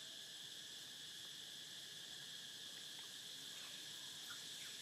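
Faint, steady high-pitched insect chorus, a constant trill, with a few soft ticks.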